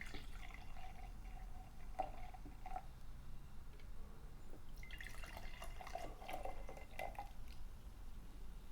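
Soda being poured from a bottle into a cup, faintly, in two pours: one in the first three seconds and another from about five to seven seconds in.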